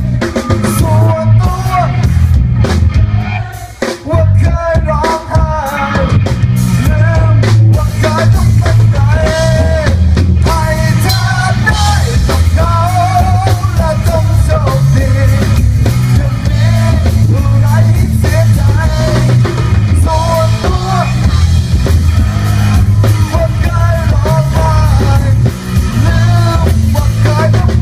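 Live rock band playing loudly through PA speakers: drum kit and electric guitar under a lead singer, with a brief drop in level about four seconds in.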